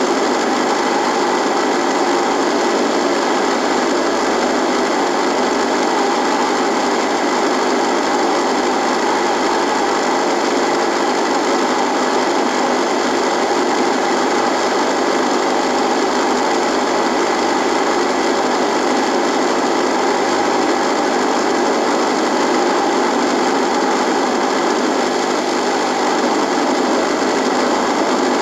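Radio buzzing: a steady, unbroken static buzz with a hiss, holding the same level throughout.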